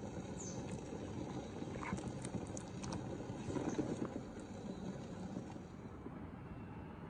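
Steady rushing background noise with a few faint light clicks in the first few seconds.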